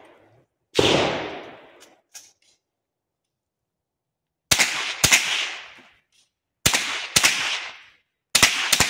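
Gunshots fired outdoors: a single shot about a second in, then after a long pause two pairs of shots about half a second apart, and a quick string of shots near the end. Each shot is followed by a fading echo.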